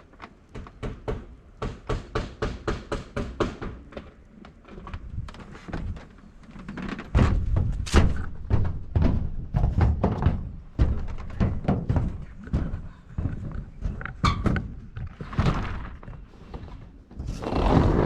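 Repeated hammer blows: quick, even strikes at about four a second for the first few seconds, then louder, heavier and more irregular knocks. Two brief scraping noises come near the end.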